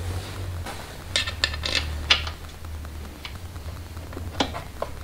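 Irregular metallic clicks and taps, about seven of them, from hand-tightening the clamp bolts and hardware on a motorcycle skid-plate tool box, over a steady low hum.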